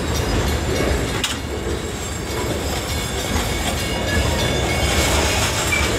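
Freight train boxcars rolling past close by: a steady rumble of steel wheels on the rails, with one sharp click about a second in.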